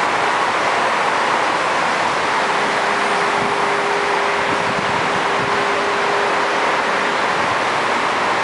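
Steady hiss of road traffic from a highway, with a faint steady tone for a few seconds in the middle.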